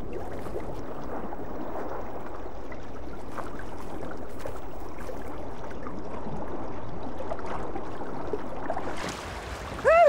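Steady rush of sea water in a swell-swept shallows, an even noisy wash; it falls away about nine seconds in.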